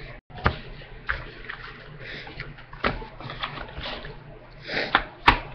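Small objects being handled and set down: a few light knocks and a brief rustle, the sharpest knock near the end.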